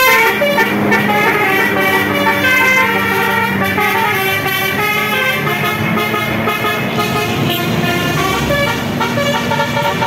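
Multi-tone telolet bus horns playing a fast tune of stepping notes, several tones sounding at once, over a steady engine hum.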